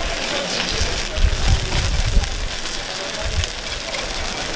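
Takoyaki batter sizzling and crackling in a hot takoyaki grill pan, a steady fizzing hiss.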